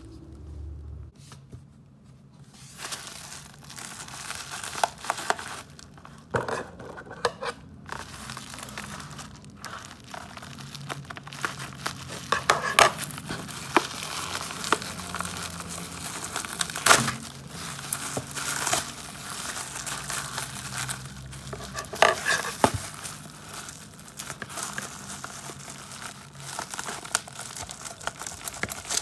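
Packaging of a 1:64 scale diecast model car being handled and opened by hand: crinkling and rustling of the wrapping, with scattered sharp clicks and taps.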